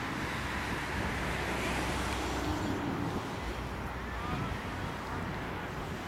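Wind rumbling on the microphone, a steady noise heaviest in the low end, with a faint short call about four seconds in.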